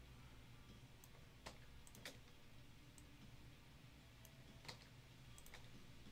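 Near silence: a low steady room hum with a few faint, scattered clicks, three of them a little clearer than the rest.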